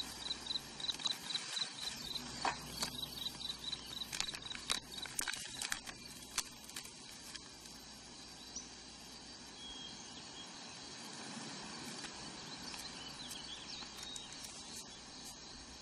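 Crickets chirping in a steady pulse over a quiet field ambience. A plastic bag crinkles in a flurry of sharp crackles as it is unwrapped in the first half, followed by a softer stretch of handling paper.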